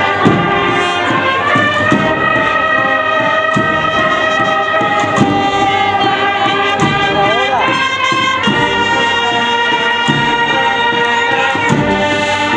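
Agrupación musical brass band (trumpets, trombones and tuba, with drums) playing a slow processional march, the brass holding long melody notes over regular drum strokes, with one note sliding upward about halfway through.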